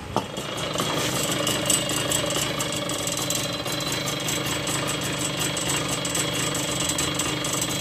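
TVS XL Heavy Duty moped's single-cylinder two-stroke engine running steadily with a fast knocking rattle. The knock comes from a damaged crankshaft and its jammed bearing, and the chattering from a seized, scored piston and barrel.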